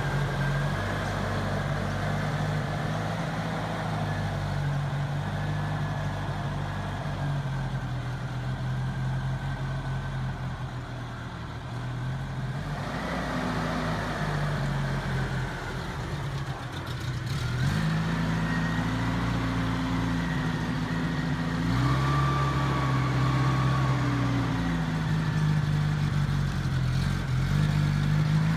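1989 Mitsubishi Pajero's engine idling steadily. About halfway through it grows louder, and its note shifts slightly up and down through the second half.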